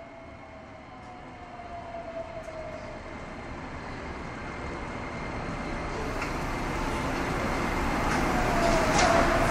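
Running noise of a Nagoya Municipal Subway Tsurumai Line train heard from inside the car: a rail rumble and hiss that grows steadily louder throughout. A faint tone slides slowly downward in the first few seconds.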